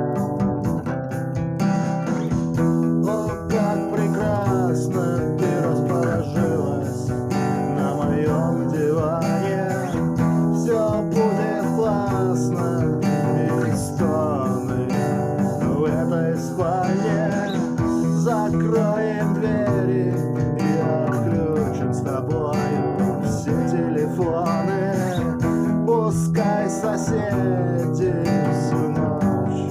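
Guitar-led song music: an instrumental stretch with acoustic guitar and a gliding melody line over it.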